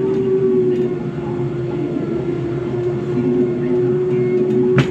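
Snail ride car running along its narrow rail track: a steady hum over the rumble of wheels on the rails, with one sharp click near the end.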